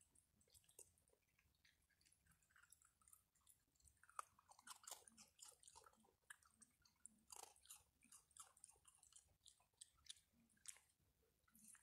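Raccoons eating from a pile of dry food: faint, irregular chewing, crunching and smacking, busier from about four seconds in.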